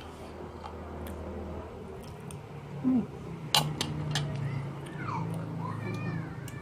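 Eating sounds with a few sharp clinks of a spoon against a soup bowl, over a steady low hum from an electric fan. Faint wavering high-pitched sounds come in near the end.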